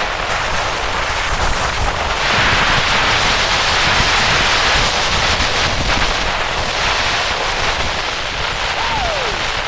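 Wind rushing over the microphone on a moving vehicle, a steady roar that swells from about two seconds in. Near the end a short whistle-like tone slides down in pitch.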